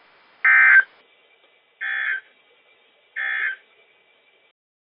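Three short bursts of EAS digital data tones (SAME end-of-message code) from a NOAA Weather Radio broadcast, evenly spaced a little over a second apart, the first one loudest: the signal that closes the alert.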